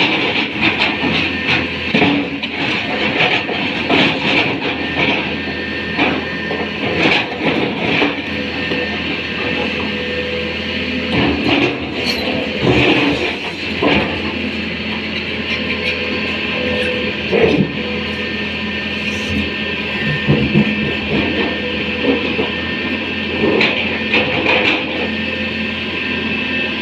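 Tata Hitachi 200 excavator running: a steady engine drone with a high steady whine over it, and scattered metallic clanks and knocks.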